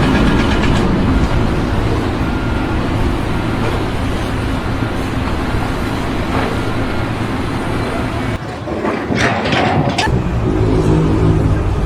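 A heavy vehicle engine running with a steady low rumble; it dips briefly about eight seconds in, then comes back louder.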